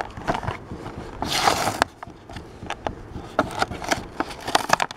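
Clear plastic blister pack being pried and torn off its cardboard backing card. The plastic crackles and crinkles with many sharp clicks, and there is a longer tearing rustle about a second and a half in.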